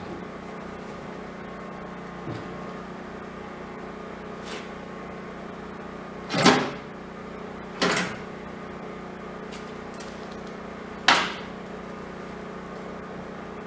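Three sharp knocks of metal parts being handled during assembly, the first slightly longer, over a steady low hum.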